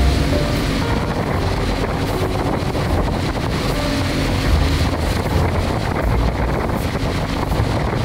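A motorboat under way: a steady low rumble of wind buffeting the bow-mounted microphone, with water washing along the hull and the Mercury 135 Optimax outboard running at a slow cruise beneath it.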